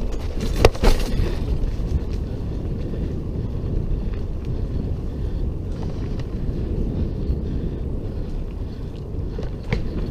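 Wind buffeting the microphone and a mountain bike's tyres rumbling over a dirt singletrack at speed. The bike rattles with a couple of sharp knocks about a second in and another near the end, as it hits bumps.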